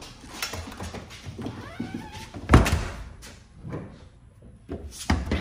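A door thuds heavily about two and a half seconds in, with another knock near the end, while dogs move about close by.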